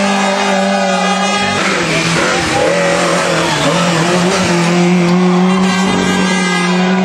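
Rally car engines running hard at high revs as the cars slide through a tight hairpin, one car after another, with the sound changing abruptly about a second and a half in and again near six seconds.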